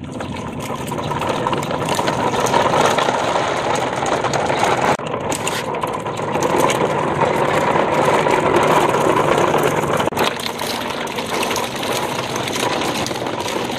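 A train of coupled plastic toy dump trucks rolling over rough, muddy concrete, the plastic wheels and trailers giving a steady rattling rumble that shifts slightly twice.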